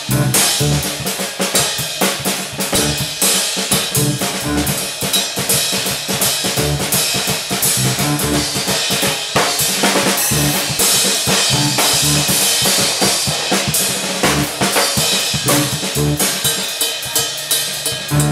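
Live instrumental trio of drum kit, electric bass and keyboard playing a steady groove, the drums loudest with snare, bass drum and rimshot hits over repeated electric bass notes. Cymbal work grows busier through the middle.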